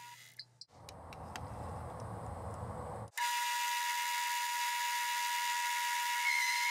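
12-inch Atlas metal lathe running while turning an aluminium arbor. First comes a lower, rougher running sound. About three seconds in it breaks off abruptly into a steady high whine, with a faint tone rising slightly near the end.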